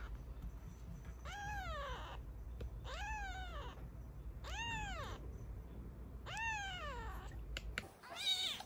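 A 13-day-old black kitten, about 210 g, mewing repeatedly: about five cries, each rising then falling in pitch, spaced a second or so apart.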